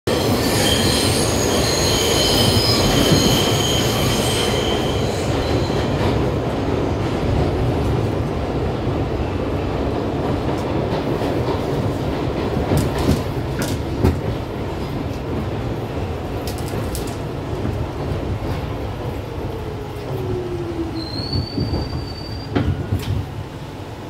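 R62 subway car running through the tunnel: steel wheels squeal on the rails for the first few seconds, then a steady rumble with a few clanks. Near the end a falling whine and a short high squeal as the train slows into the station.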